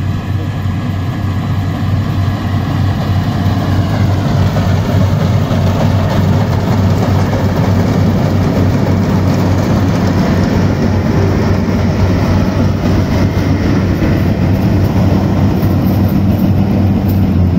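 Yanmar AW70 rice combine harvester running, a steady low diesel drone under dense mechanical noise from the machine at work. It grows louder over the first few seconds.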